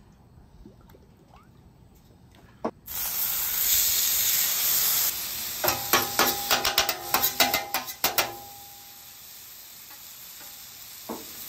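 A marinated ribeye steak starts sizzling loudly on a hot steel flat-top griddle about three seconds in. Midway, a metal spatula scrapes and clatters across the griddle top in a quick run of strokes. The sizzle then settles to a lower, steady hiss.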